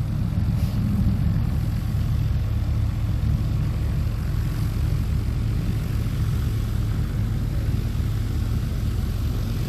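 Light single-engine propeller plane's engine running steadily at low power as it taxis, a constant low drone.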